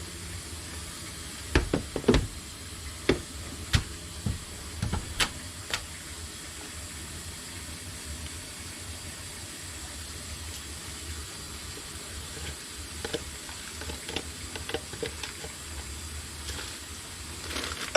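Panasonic stick vacuum running with a steady airy hiss, with sharp clicks and knocks in the first few seconds and lighter ones again after about twelve seconds.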